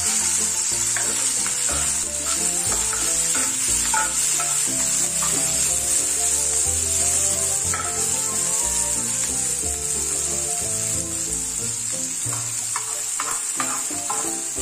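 Chopped onion, tomato and green chili sizzling in a hot black pan, a steady hiss, with background music underneath.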